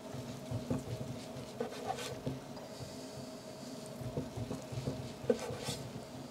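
A large cleaver-style knife slicing through a crusty seared bison steak and meeting a wooden cutting board: soft irregular scrapes and light knocks, a couple of them sharper.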